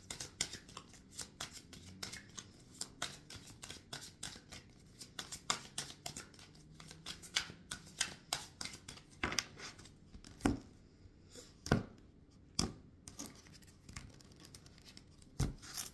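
Tarot cards being shuffled by hand: a fast, dense run of light card snaps and clicks, thinning after about nine seconds to a handful of separate, louder snaps.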